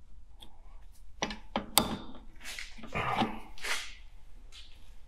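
Metal clicks and scrapes from rear drum brake shoes and their steel return springs being levered into place with pliers, the sharpest click a little under two seconds in.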